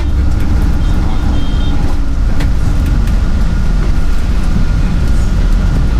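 Sleeper bus engine and road noise heard from inside the moving cabin: a steady, loud low rumble, with a few faint short high beeps about a second in.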